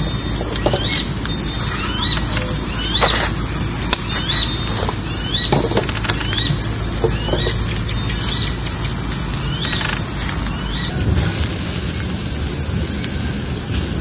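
Steady high-pitched drone of insects, with a bird repeating a short rising chirp about twice a second that stops about ten seconds in; a few faint clicks.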